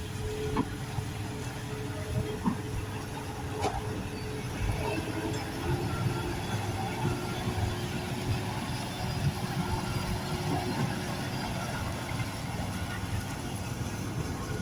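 Diesel engine of a working loader machine running steadily, with a few short knocks and clunks.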